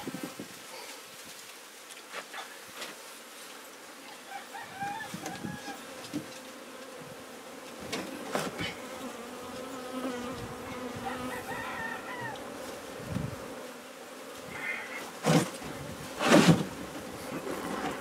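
Honey bees buzzing steadily around comb being cut out of a hive. Several knocks from handling break in, the loudest near the end.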